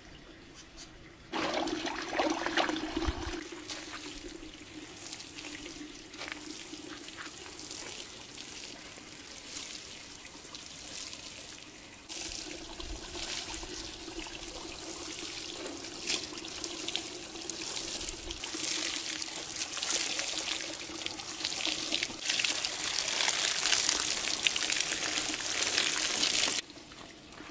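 Water running from a tap into a sink, turned on about a second in and cut off suddenly near the end, with scattered splashes and knocks as things are rinsed in the stream.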